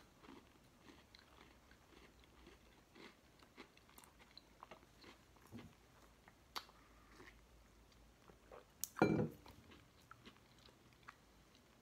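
A person chewing crunchy MRE crackers with peanut butter: soft crunches and small mouth clicks scattered through, with one louder brief noise about nine seconds in.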